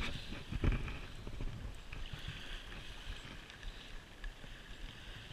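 Wind rumbling on the microphone with a soft, steady hiss of small surf, and one low thump just under a second in.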